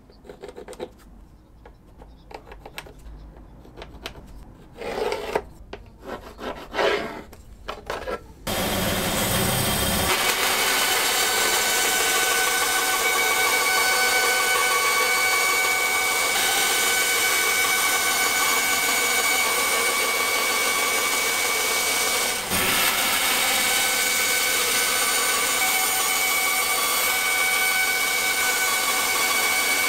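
Light pencil scratching on a Kydex sheet with a few louder strokes. About eight seconds in, a band saw starts and cuts through a 2.4 mm Kydex thermoplastic sheet: a loud, steady cutting noise with high, steady ringing tones that runs on without a break.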